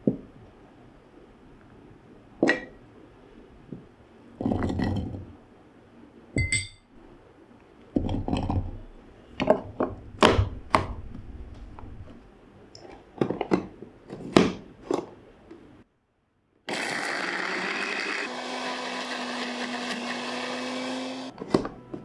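Scattered knocks and clinks of ingredients, a bowl and a plastic blade top being set into a small plastic blender jar, then the electric blender's motor runs steadily for about four seconds, grinding shallots, garlic and chillies into a spice paste, and stops abruptly.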